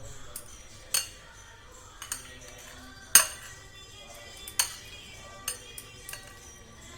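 Spoon clinking against a bowl while stirring and mixing a sprout salad: a handful of irregular sharp clinks, the loudest a little past three seconds in.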